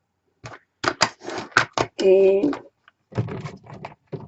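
Quick run of sharp clicks and clatters of small hard craft supplies being handled and set down on a table, followed by softer scattered rustling and tapping.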